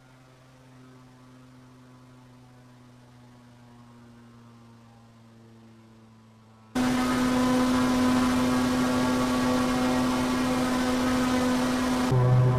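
Turboprop aircraft engine drone heard over a keyed aviation radio: a faint steady hum, then about seven seconds in a transmission cuts in suddenly, loud and steady, with engine noise and static. Near the end its low pitch shifts.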